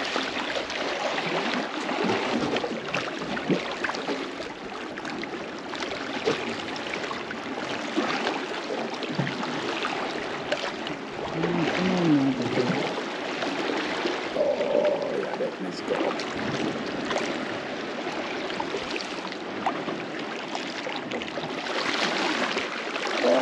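Small waves lapping and splashing against seaweed-covered rocks at the water's edge: a steady wash of water with many little splashes.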